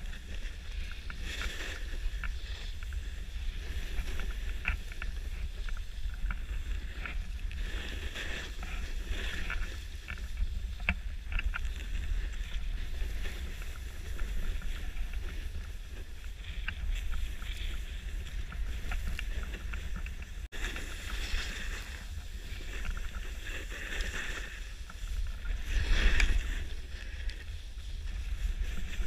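Wind rumbling on the microphone of an action camera moving downhill on skis, with the hiss of skis sliding and carving over snow that swells now and then, loudest near the end.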